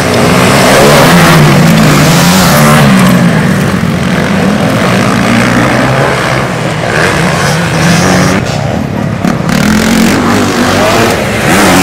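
Motocross bike engines running hard and revving, their pitch rising and falling as the riders work the throttle over the jumps.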